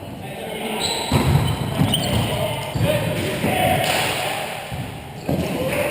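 Volleyball play in a gym: a ball struck and bouncing with several thuds about a second apart, amid players' voices.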